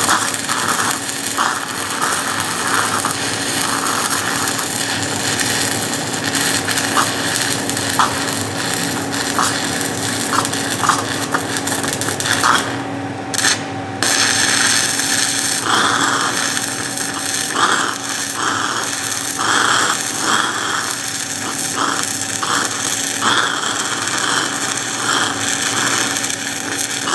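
Shielded metal arc (stick) welding with a 3/32-inch 6010 electrode at 69 amps, running an open-root pass on steel pipe: a steady, crackling arc. About halfway through, the arc drops out twice for a moment and picks back up.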